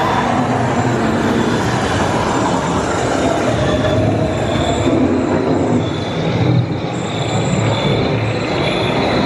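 Loud, steady haunted-house effects soundtrack playing through speakers: a dense rumbling, grinding noise with faint high tones that come and go.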